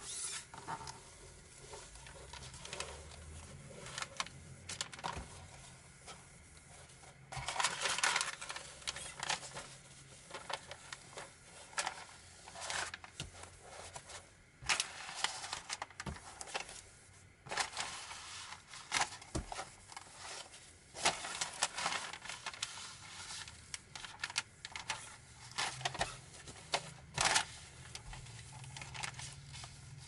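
Self-adhesive vinyl sheet being peeled from its backing paper and smoothed down onto a plastic sheet with a folded tissue to keep out air bubbles: irregular rustling, crinkling and rubbing, with louder scraping strokes every second or two.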